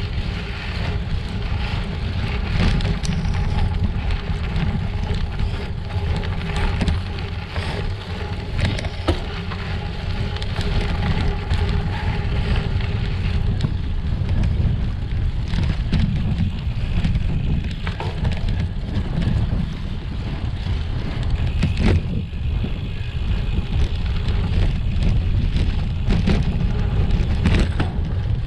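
Gravel bicycle clattering over a rough, rocky two-track, with many small knocks and rattles from the bike and stones, under steady wind rumble on the microphone.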